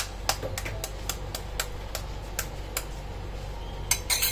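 Raw egg's shell being tapped repeatedly with metal cutlery to crack it: a string of light, sharp clicks about three a second, with a quick cluster of taps near the end.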